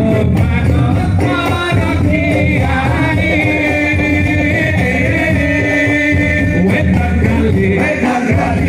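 Sholawat singing: a male voice holding long, wavering notes over a dense, steady drum accompaniment.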